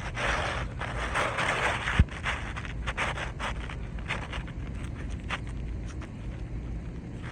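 Asphalt roofing shingle scraping as it is slid in under the shingles above, for about the first two seconds. A sharp knock follows, then scattered light clicks and taps.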